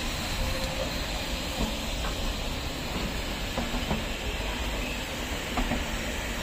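Automatic coach washing plant at work: water jets and rotating vertical brushes hiss steadily against a slowly passing passenger train, with a few faint knocks from the rolling coaches.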